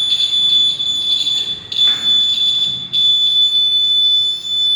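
Electronic alarm buzzer sounding one steady, piercing high-pitched tone, with brief dips about two and three seconds in. It is the alarm of a wire-breaking alarm circuit going off, the sign that its guard wire has been broken.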